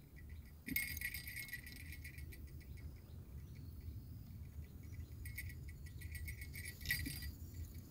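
Faint clicking and rattling of a fishing hook and tackle as a small freshly caught fish is unhooked and handled, in two short spells.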